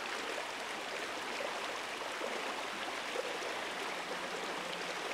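Water running in a shallow stream: a steady babble with many small splashes and trickles.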